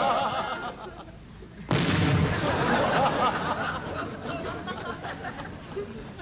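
A single explosion about two seconds in: a sudden loud blast with a heavy low rumble that slowly dies away over the following seconds.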